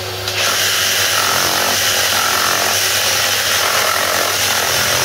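Ryobi 18V HP brushless one-handed reciprocating saw cutting through timber with screws in it: a loud, steady, harsh rasp of the blade in the wood. It starts a moment in and stops suddenly near the end.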